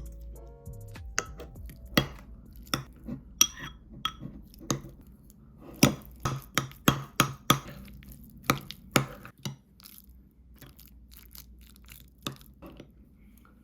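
Sharp clinks and knocks of kitchenware being handled: a quick run of them from about two to nine seconds in, then a few more spaced out.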